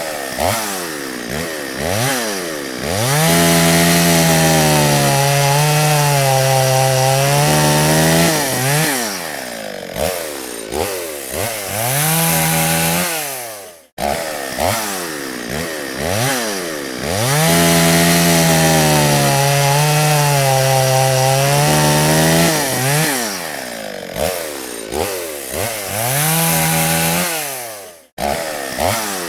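Chainsaw engine revving in short blips, then held at full throttle for about five seconds as it cuts wood, its pitch sagging and wavering under the load. It revs again and cuts off abruptly, and the whole sequence plays twice.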